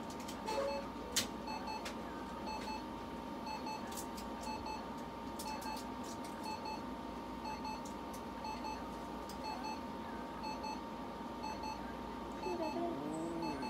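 Short electronic beeps repeating in a steady, regular pattern from a handheld red-light therapy lamp as it irradiates a cat, over a constant electrical tone and hum. A sharp click comes about a second in.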